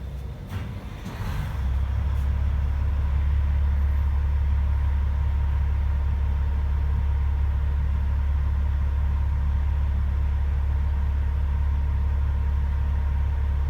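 Truck engine starting about a second and a half in, then idling steadily with a low rumble at about 700 rpm.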